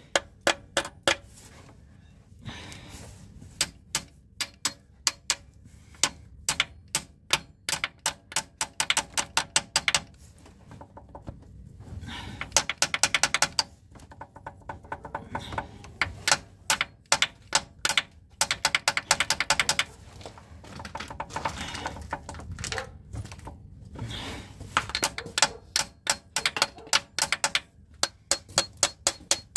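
Ratchet wrench clicking in quick runs with short pauses, as its socket works the nuts of a connecting-rod cap on a VW Golf 2 engine that has spun a rod bearing.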